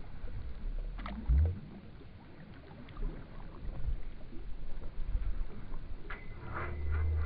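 Low rumbling and knocking aboard a small fishing boat at sea, with one loud thump about a second in.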